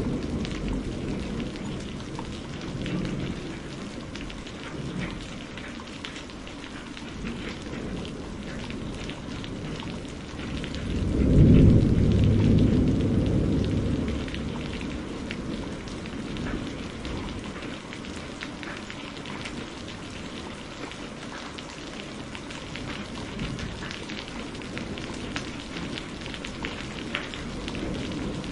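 Steady rain with low rolling thunder. About eleven seconds in, a louder peal of thunder swells, rumbles for a few seconds and fades back under the rain.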